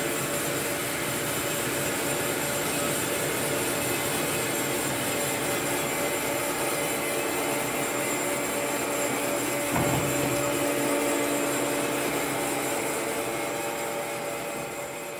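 FMB Jupiter automatic metal-cutting bandsaw running, its blade and drive motor giving a steady noise with a hum. A single knock comes about ten seconds in, after which the hum shifts slightly. The sound fades near the end.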